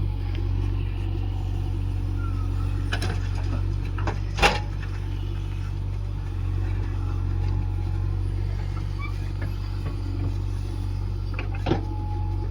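A heavy diesel engine running steadily, with three sharp knocks: one about three seconds in, a louder one a second and a half later, and one near the end.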